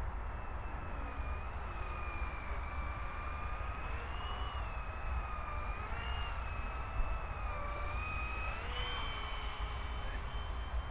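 Blade 120 SR electric RC helicopter in flight: a high motor-and-rotor whine whose pitch rises and falls as the throttle changes, stepping up sharply near the end. A low steady rumble runs beneath it.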